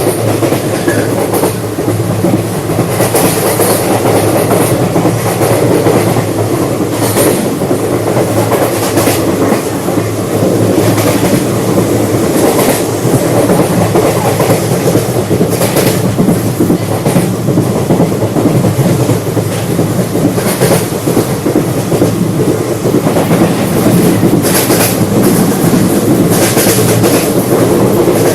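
Indian Railways passenger train running at speed, heard from inside the coach: a steady rumble of wheels on rail, with clickety-clack clicks every second or two as the wheels cross rail joints.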